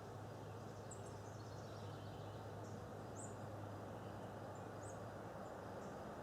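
Faint steady background noise with a low hum, and a few short, high chirps about one, three and five seconds in.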